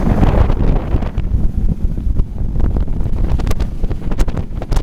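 Wind buffeting the microphone on a moving roller coaster, over the low rumble of the coaster train running on its track, with scattered sharp clicks and knocks in the second half.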